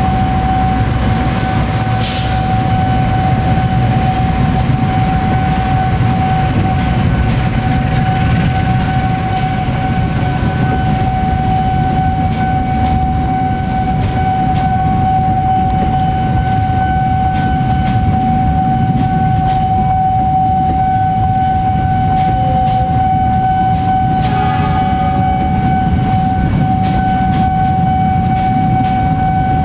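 Diesel-hauled passenger train of stainless-steel coaches rolling past at close range: a constant low rumble of wheels on the rails, with one steady high-pitched tone held throughout. A short hiss about two seconds in.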